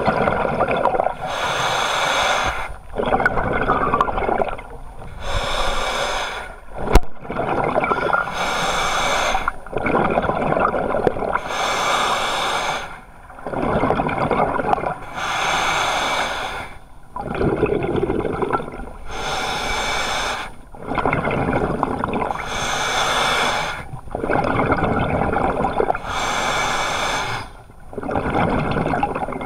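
Diver breathing through a scuba regulator underwater: hissing inhalations and bubbling exhalations that alternate in an even cycle, each lasting a second or two with short pauses between. A single sharp click about seven seconds in.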